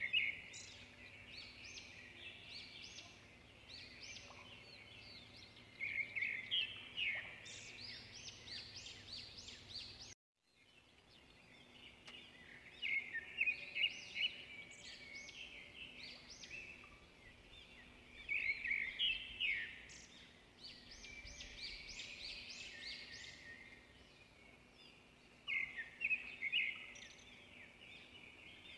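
Birds chirping: many quick, high twittering calls coming in clusters and overlapping. The sound cuts out for a moment about ten seconds in, then the chirping resumes.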